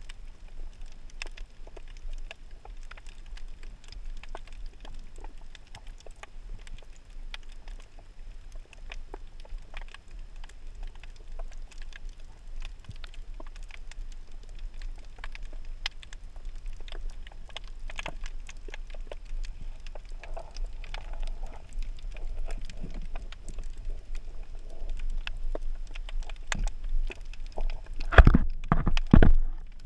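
Underwater ambience picked up through a camera housing: a low rumble with a steady, irregular crackle of sharp clicks. A few heavy thumps sound close together near the end.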